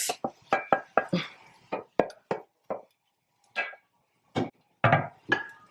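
Cooking utensils knocking and scraping against a metal cooking pot: a string of irregular clanks, a few of them ringing briefly.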